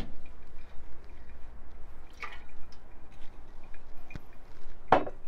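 Brewed coffee dripping from a pour-over dripper's paper filter into a glass server as the bed drains, with a couple of brief taps, the louder one near the end.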